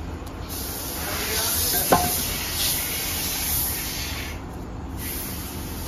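A steady hiss, with one sharp metallic clink of an aluminium bowl about two seconds in as chenna is scooped and packed into it by hand.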